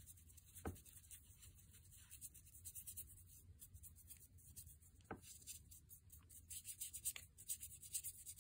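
Faint scratching and ticking of a small paintbrush working paint into the cracks of a cement cast of teeth, with two soft clicks, about a second in and again about five seconds in.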